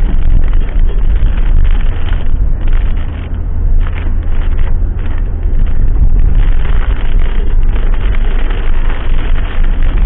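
Ambulance driving at speed, filmed by its dashcam: loud, rumbling road and wind noise buffeting the microphone, with no steady tone or siren-like glide in it.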